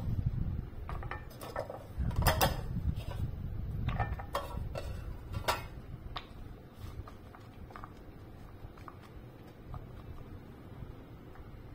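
Crockery being handled: a few sharp clicks and knocks over a low rumble in the first half, then it settles to faint, even background noise.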